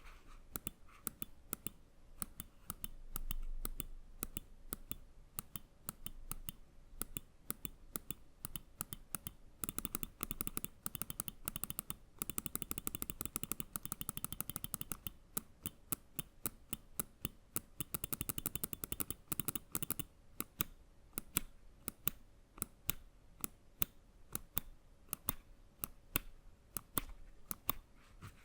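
Epomaker Carbon X gaming mouse switches clicking: separate clicks at first, then fast runs of clicks from about ten to fifteen seconds in and again around eighteen to twenty seconds, before going back to single clicks.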